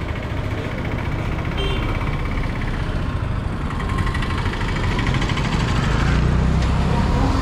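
Vehicle engine running with road noise while driving along a street; the low rumble grows louder over the second half.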